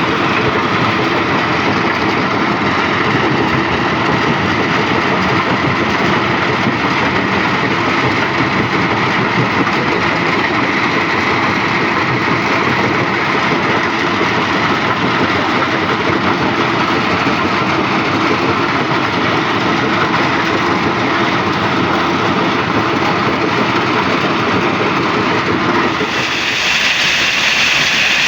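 Stone crusher machine running, a loud steady mechanical din. About two seconds before the end the sound changes abruptly and turns brighter and harsher.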